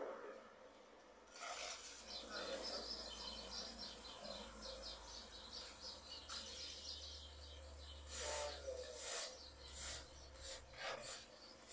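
Shovels and rakes scraping and spreading hot tarmac on a road surface: a run of quick rasping strokes, then heavier separate scrapes near the end, over a low hum.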